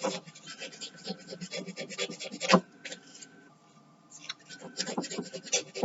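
A nail file rasping back and forth along the edge of a cast resin pendant in quick strokes, sanding it smooth. There is a single sharp knock about two and a half seconds in, a short pause, and then the filing starts again.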